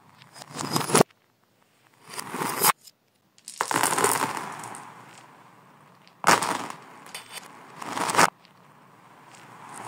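Handfuls of small plastic balls, beads and wooden pieces clattering and scattering on a hard floor, played in reverse: about five bursts of rattling, most swelling up and then cutting off abruptly.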